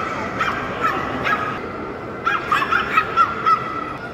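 A small dog, a Pomeranian, yipping: short high-pitched yaps, a few spaced out in the first second and a quicker run of them from about two seconds in.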